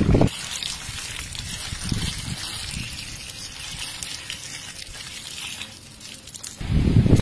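Water splashing and trickling as chopped Chinese kale leaves are washed by hand and drained in a perforated plastic basket. A loud low rumble of handling comes near the end.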